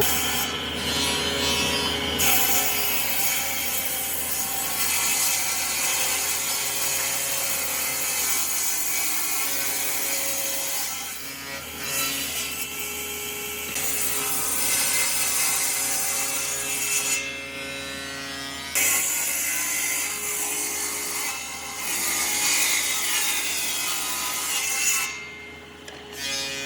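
Wood being worked with hand or power tools, with sawing and rubbing noise. The sound stops and changes abruptly several times.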